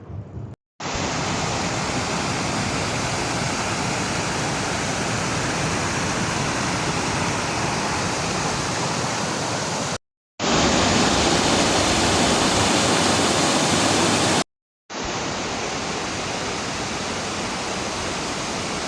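Waterfall: a steady rush of falling water in three stretches, broken by two short silent cuts. The middle stretch is the loudest.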